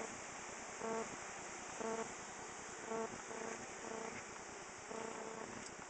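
Honeybees buzzing faintly around the hive entrance, with a short pitched tone repeating about once a second.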